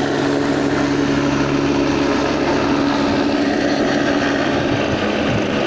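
Helicopter flying low nearby, its engine and rotor noise running steadily at an even loudness, with a constant hum in it.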